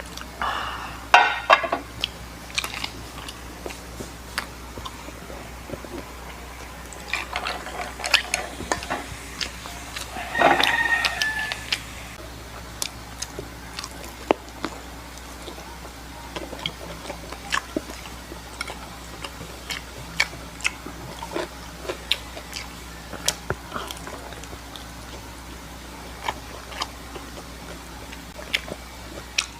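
Close-up eating sounds of pizza and fried chicken being bitten and chewed: many small sharp clicks and smacks throughout. A rooster crows twice in the background, briefly about a second in and again, longer, about ten seconds in.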